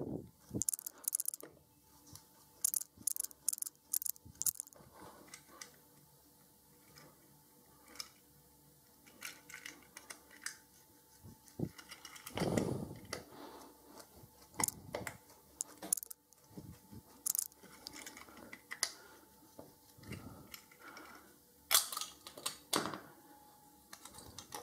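Irregular light metal scraping and clicking as a small hand tool is worked against the rivet of a diecast toy car's metal base, opening it by hand without a drill. Near the end there are small clicks and rattles as the car's parts are pulled apart and handled.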